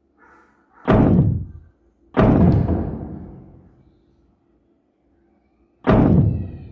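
Three loud, heavy slams, about a second in, a second later, and near the end, each ringing out as it dies away.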